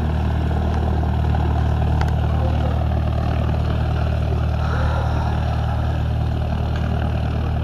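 An engine running steadily at idle: a low, even hum that does not change in pitch.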